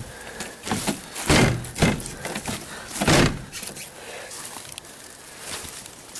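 A run of knocks and thuds from a car door being handled and shut, the loudest about a second and a half in and again about three seconds in, followed by quieter rustling.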